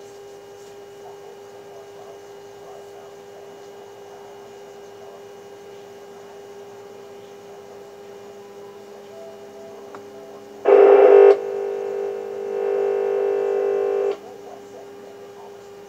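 Electronic tones from a transceiver's speaker over a steady hum. About two-thirds of the way through, a short loud tone burst is followed by a steady buzzy tone that lasts about three seconds and then cuts off.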